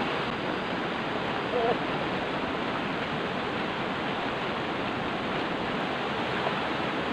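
River water rushing steadily over a small rocky cascade, a constant rush. A brief short call stands out about a second and a half in.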